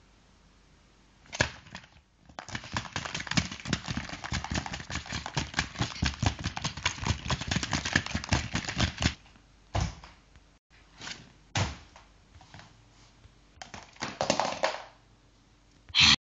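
Several seconds of rapid rustling and clicking, like things being handled and rubbed against a leather sofa, then a few separate knocks, the loudest a sharp double knock near the end.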